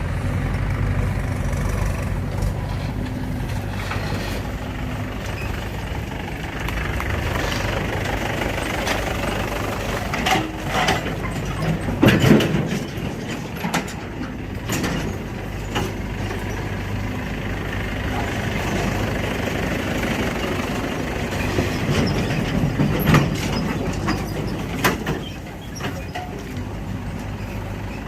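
JCB 3DX backhoe loader's diesel engine running steadily as it digs, with several sharp knocks from the bucket and arm along the way, the loudest about twelve seconds in.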